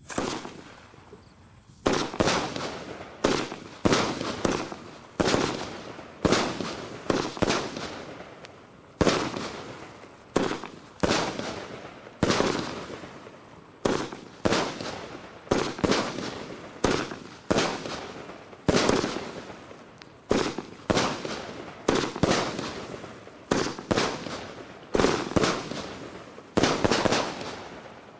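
A 19-shot, 30 mm firework cake (battery) firing. A steady string of sharp bangs about a second apart, each fading in a hissing tail, runs for some 25 seconds.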